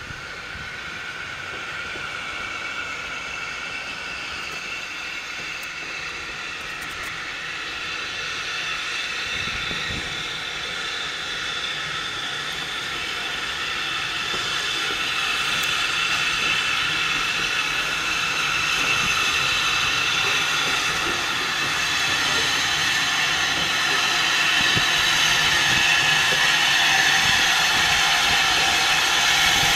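LSWR T9 4-4-0 steam locomotive moving slowly at low speed with a steady steam hiss, growing gradually louder as it draws closer.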